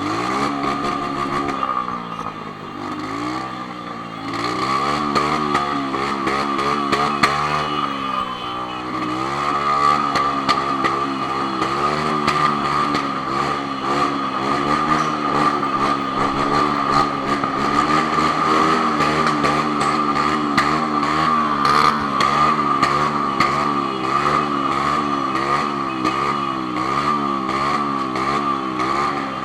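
Honda CB1000 motorcycle engine running under way, its pitch climbing as it pulls through the first few seconds, dipping, climbing again, then rising and falling gently about once a second with the throttle.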